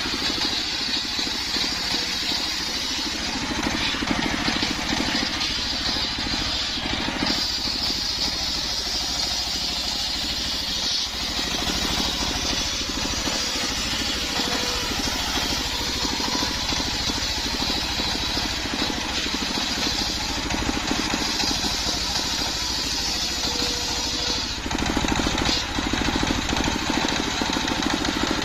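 Belt-driven circular saw bench ripping a sengon (albasia) log lengthwise, the blade's cutting whine over the steady run of the stationary engine that drives it. The cutting note shifts a few times as the log is pushed through.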